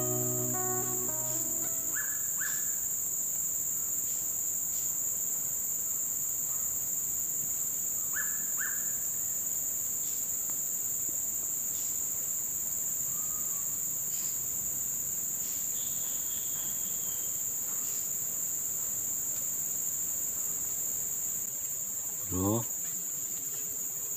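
Steady, shrill chorus of swamp insects: a continuous high-pitched drone on two pitches, with a few faint short chirps. Background music fades out in the first second or so, and a short rising sound comes near the end.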